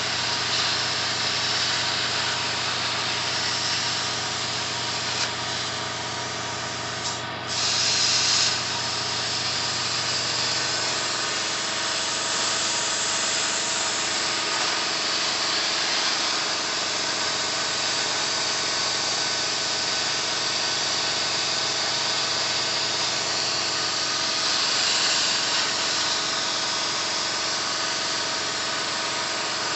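CNC plasma torch cutting steel plate: a steady loud hiss from the arc and its air jet. About seven seconds in it breaks off for a moment, then comes back with a louder blast for about a second. A low hum underneath stops about eleven seconds in.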